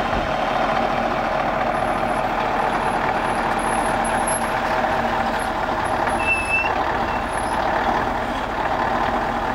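A heavy diesel truck engine running steadily.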